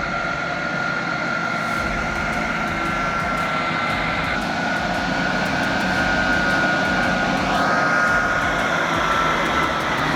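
Machinery engine running steadily with a high-pitched whine that shifts in pitch about four seconds in and again near eight seconds.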